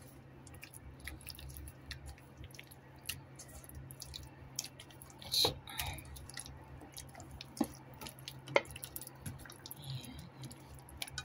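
Wet squishing and squelching of raw chicken pieces being turned by hand in an egg-and-flour coating in a metal bowl, with scattered small clicks and a few sharper ones about halfway through. A steady low hum sits underneath.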